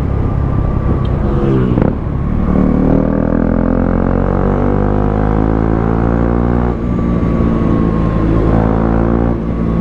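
KTM RC 390's single-cylinder engine running through an aftermarket Akrapovic muffler while riding, its exhaust note rising in pitch under acceleration with short dips about two and seven seconds in.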